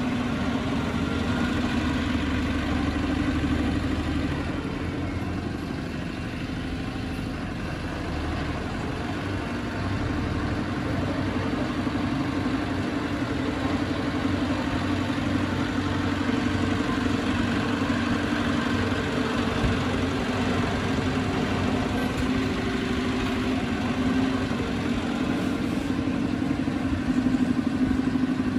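Heavy earthmoving machine's diesel engine running steadily under varying load, easing off a few seconds in and picking up again about ten seconds in.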